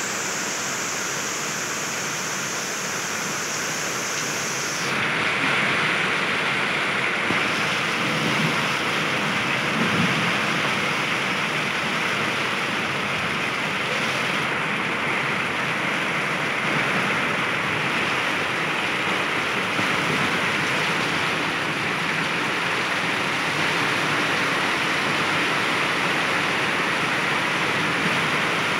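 Hailstorm: hailstones and rain pelting the ground in a steady, dense hiss that steps up in loudness about five seconds in.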